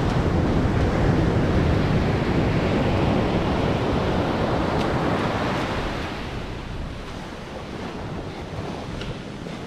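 Ocean surf breaking and washing up the beach, with wind rumbling on the microphone; louder for the first six seconds, then easing off.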